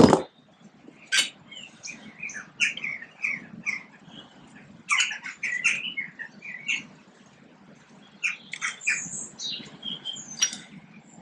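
Small birds chirping and twittering in quick runs of short notes, with a few sharp metallic clinks from the tractor's brake shoes and springs being handled.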